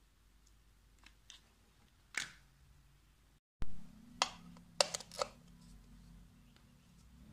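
A few faint clicks and one sharper click, then several sharp plastic clicks and knocks as a plug-in power adapter is pushed into a wall socket, over a low steady hum.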